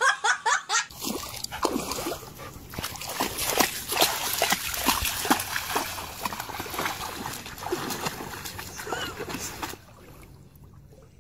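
Water splashing and sloshing in irregular strokes as a dog wades and bounds through shallow lake water. The splashing stops suddenly near the end.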